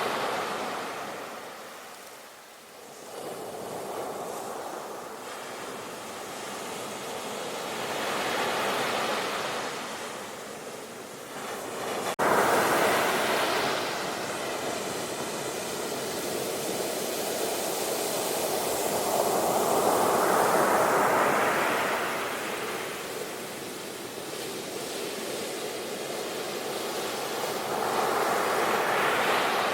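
Ocean surf breaking and washing up the shore as a steady rushing hiss that swells and fades in slow surges every several seconds. A wave comes in sharply about twelve seconds in, and the loudest break is around two-thirds of the way through.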